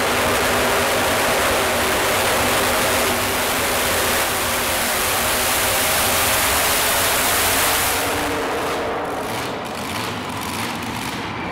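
Supercharged (blown) small-block V8 of a modified mini pulling tractor running flat out under load as it drags the sled. About eight seconds in the engine drops off sharply to low revs, with scattered popping.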